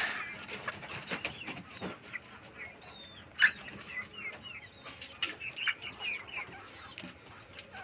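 A flock of chickens clucking, with short high calls scattered through and a few sharp clicks.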